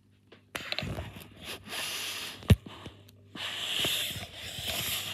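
Irregular scraping and rustling of a handheld phone camera being moved and rubbed close against the tank, with one sharp click about two and a half seconds in and a longer stretch of scraping near the end.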